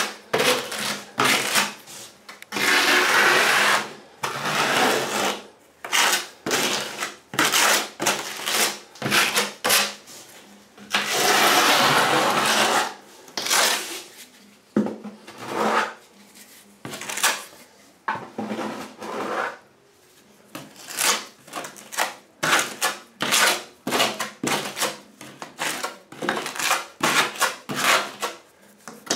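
Metal broad knife scraping and spreading thinset mortar against a tile edge, in many short strokes and two longer drawn-out scrapes, the first about two and a half seconds in and the second about eleven seconds in.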